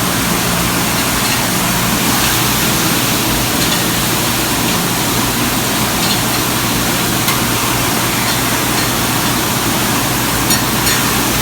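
Commercial high-temperature conveyor dishwasher running: a steady spray of wash water inside the machine over the low, even hum of its pump motor.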